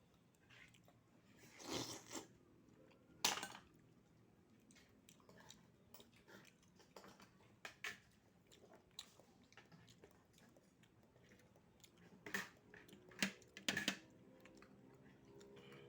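A person eating oysters, chewing and biting, with a few sharp clicks in between. Faint music comes in near the end.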